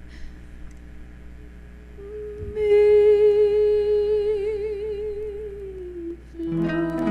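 Woman singing a long, wordless held note with vibrato into a microphone. It enters about two seconds in, swells, and trails off near six seconds over a quiet musical accompaniment, and new notes start near the end.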